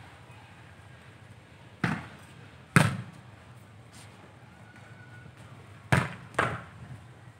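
Four sharp thuds of a football (soccer ball) being hit: two about a second apart, the second the loudest, then two more in quick succession near the end.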